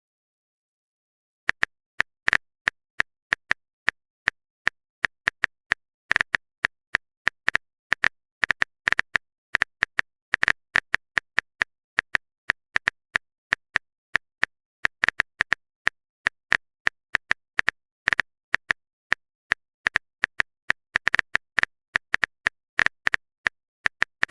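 Rapid, irregular clicking of a typing sound effect, as of a phone keyboard tapping out a message, several taps a second.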